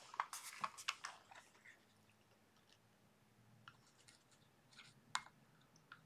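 Light clicks and rustles of hands handling small parts and tools: a quick flurry in the first second or two, then a few scattered clicks, with one sharper click about five seconds in.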